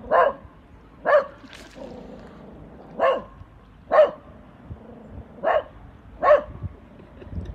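A small dog barking at the sea from the water's edge: six short, sharp barks, a longer pause after the second.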